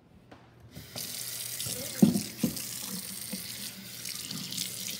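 Kitchen faucet running into a stainless steel sink: the water comes on about a second in and keeps up a steady splashing hiss, with a single sharp knock about two seconds in.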